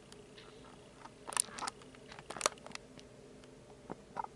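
A handful of light taps and handling clicks from a hand at the recording phone or camera, the loudest a bit over a second in and about two and a half seconds in, over a faint steady electrical hum.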